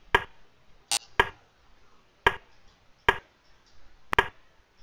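A rapid, uneven run of sharp clicks, about seven in under five seconds, as moves are played one after another in an online blitz chess time scramble.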